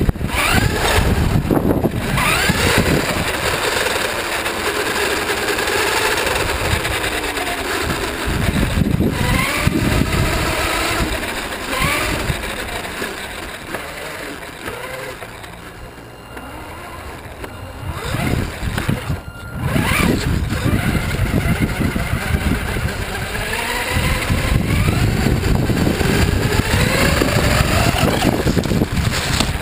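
The motor of an FTX Enrage 1/10 RC car, heard from a camera mounted on the car, whining up and down in pitch as the car speeds up and slows again, over a rough rush of wind and tyre noise. The sound eases off for a few seconds about halfway through, then picks up again.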